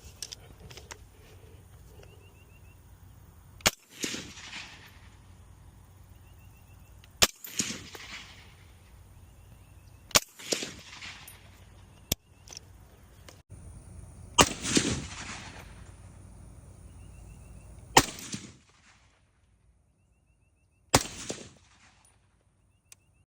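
Six suppressed rifle shots in .308/7.62, fired through a YHM Resonator K suppressor and spaced about three to four seconds apart. Each sharp crack is followed by a short echo that trails off over about half a second.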